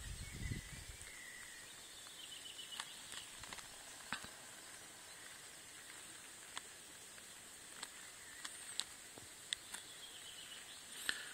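Quiet lakeshore ambience: a faint steady hiss with scattered small ticks and a few faint high chirps. A brief low wind rumble on the microphone fades out about a second in.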